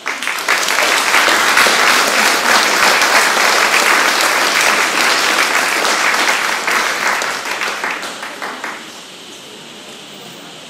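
Audience applauding: many hands clapping together, thinning out and dying away about nine seconds in.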